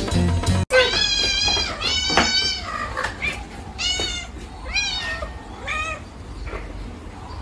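Cat meowing repeatedly: about six short, high cries, each rising then falling in pitch, growing fainter toward the end.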